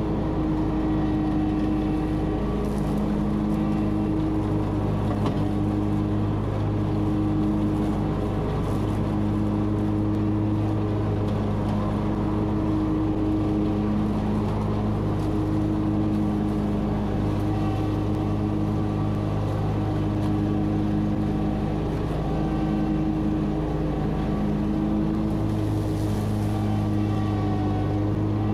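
Riding lawn mower engine running steadily at high throttle as the mower drives across the lawn.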